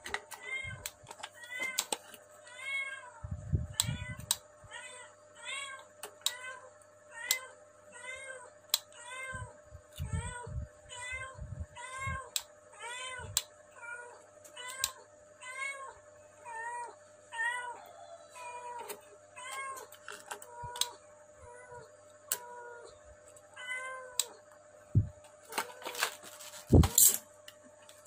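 Cat meowing over and over in short, evenly repeated mews, a little more than one a second. Scattered clicks and a few knocks from pliers and wire being handled on the board, the loudest near the end.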